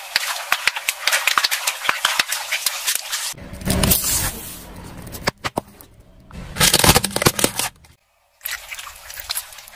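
A car tyre crushing one row of objects after another, with cuts between. First a dense run of crackling and clicking as it rolls onto a row of long balloons. Then a loud burst as small plastic drink bottles split and spray under the tyre. Near the end comes a softer squashing of gel-bead cubes.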